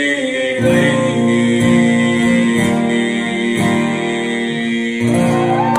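Male singer holding a long closing note over acoustic guitar strummed about once a second, ending a country ballad. The crowd starts cheering and whistling near the end.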